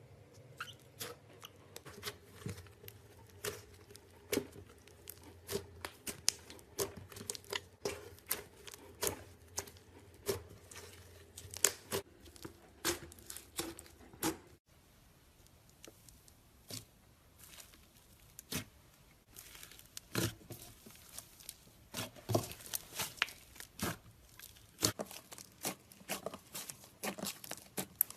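Slime being squeezed and stretched by hand, giving a dense, irregular run of sharp pops and crackles.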